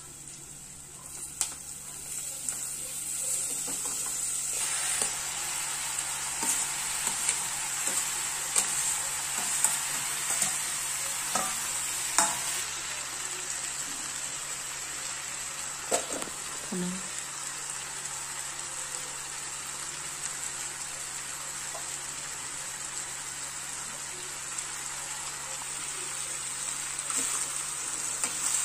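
Chopped onions and diced potatoes frying in oil in a pan, sizzling steadily. A steel slotted spoon stirs and clinks against the pan now and then. The sizzle grows louder about four seconds in.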